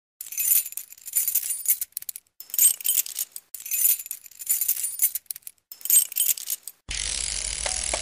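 High, bright jingling and shimmering sound effect in four or five short bursts with brief gaps between them. About seven seconds in it gives way to a steady music track.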